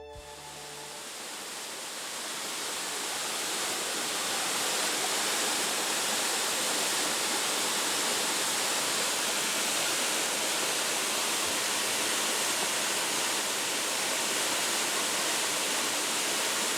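The Tatsuzawa Fudo Waterfall, a 10-metre-high, 16-metre-wide fall, pouring water in a steady rush. The sound fades in over the first few seconds, then holds even.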